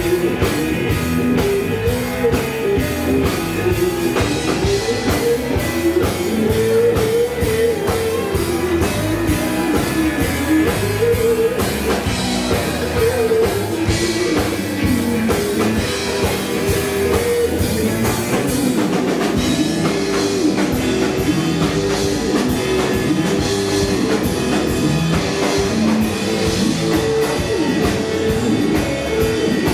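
A live rock band playing: electric guitars, bass guitar and drum kit through a club PA.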